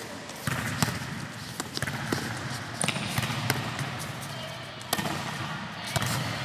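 Volleyball being struck by players' hands and forearms in a passing drill in a gym hall: a string of sharp, irregularly spaced smacks, about a dozen in all.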